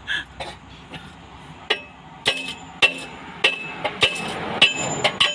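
A steel hammer strikes a truck's driveshaft hanger bearing assembly, metal on metal. There are about seven blows, each with a short ringing note, coming roughly every 0.6 s from a little over a second in.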